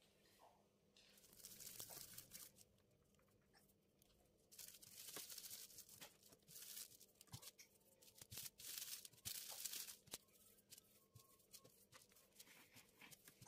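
Faint crinkling and rustling of a clear plastic sheet as pieces of bao dough are handled and rounded by hand on it, coming in uneven bursts.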